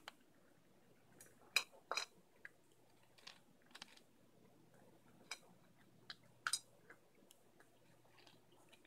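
An Egyptian Mau cat crunching dry kibble: faint, irregular crisp crunches, louder about a second and a half to two seconds in and again about six and a half seconds in.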